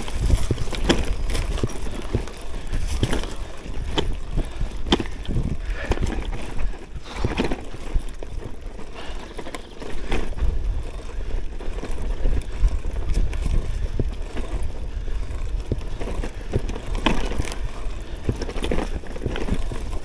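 Gravel bike (CUBE Cross Race Pro) rolling over a rough dirt trail: a steady rumble of tyres on dirt, with frequent irregular knocks and rattles as the bike jolts over bumps.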